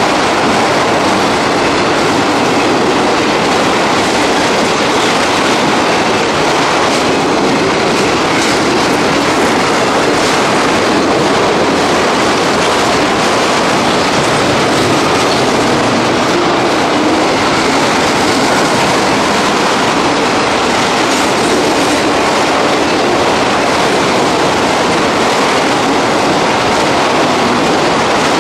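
Long freight train of enclosed autorack cars rolling past at close range: a steady, loud rolling noise of steel wheels on the rails.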